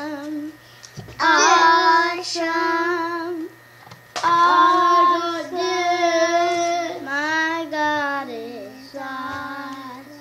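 A young child singing in a high voice: three phrases with long held notes, trailing off softer near the end.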